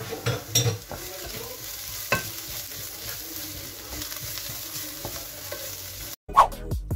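Wooden spoon stirring chopped onion, green pepper and carrot frying in a pot, with a steady sizzle and a few sharp clatters of the spoon against the pot in the first two seconds. The sound cuts off abruptly about a second before the end.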